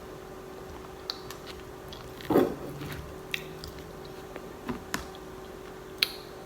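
A person chewing and biting stuffed clams close to the microphone, with scattered wet mouth clicks and smacks. The loudest one comes a little over two seconds in.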